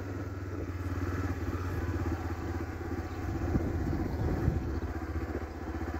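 Honda XRE motorcycle's single-cylinder engine running steadily at low speed, heard from the saddle, with a couple of light knocks about three and a half and four and a half seconds in.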